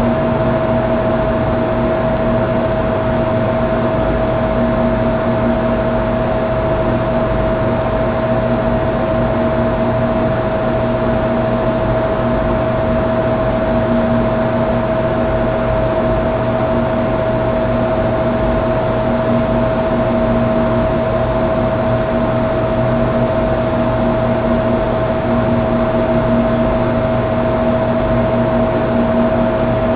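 A steady, unchanging hum with hiss and a constant higher tone.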